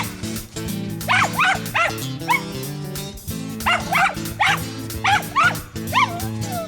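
Mountain feist barking at a treed squirrel: short, sharp, high barks in two bursts of about five and six, the last one trailing off into a lower whine. Background music plays under the barking.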